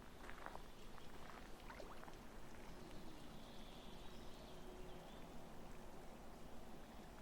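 A few footsteps crunching on gravel in the first two seconds, then quiet outdoor ambience with a faint distant tone near the middle.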